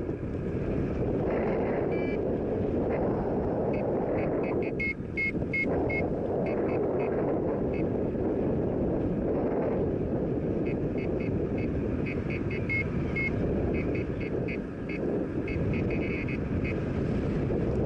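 Airflow rushing over the microphone of a paraglider in flight. Over it, the short high beeps of a flight variometer come in quick runs, once about four seconds in and again through the second half.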